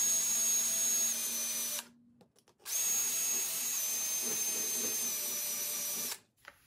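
Cordless drill spinning in two runs of a few seconds each, with a short stop about two seconds in. Each run gives a steady high whine that dips slightly in pitch late in the run.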